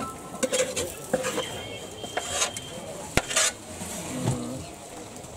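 Metal spoon scraping and clinking against a large aluminium pot as curry is scooped out, with several sharp metal clinks and knocks.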